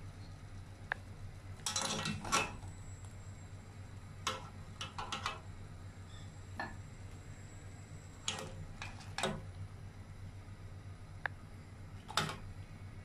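Metal clinks and clatters on a stainless steel cooking pot, about a dozen short knocks coming in small clusters every few seconds, over a steady low hum.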